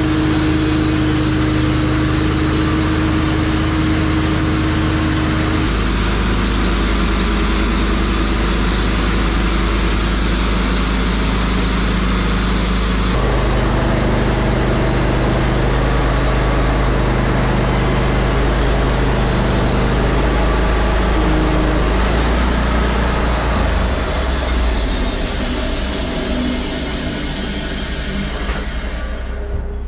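Wood-Mizer LT15 Wide portable bandsaw mill running, its engine and band blade sawing lengthwise through an ash log in one long continuous pass. The pitch of the hum shifts about six and again about thirteen seconds in, and the sound drops away right at the end.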